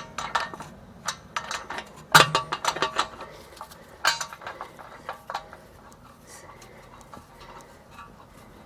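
Irregular metallic clicks and clinks as the star wheel adjuster of a Nissan Elgrand E51's rear drum-in-hat parking-brake shoes is turned with a tool, expanding the shoes. The loudest clicks come about 2 and 4 seconds in, and they thin out and grow fainter in the second half.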